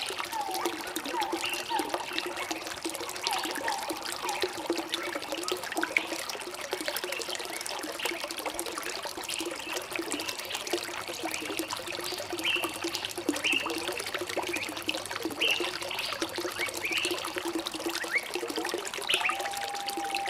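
Trickling, burbling stream water with songbirds calling over it: many short high chirps throughout, a few quick falling notes in the first few seconds, and a longer held whistle near the end.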